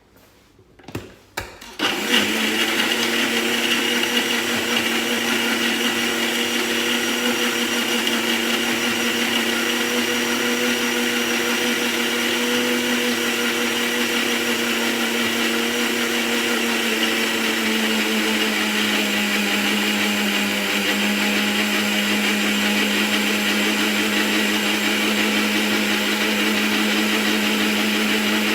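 Electric blender running: a few clicks, then the motor starts about two seconds in and runs steadily, blending a cashew sauce with water. Its hum drops slightly in pitch about two-thirds of the way through.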